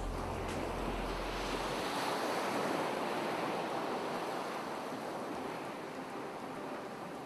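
Ocean surf: a wave washing in, swelling to its loudest about two or three seconds in and then easing back. A low hum underneath stops about two seconds in.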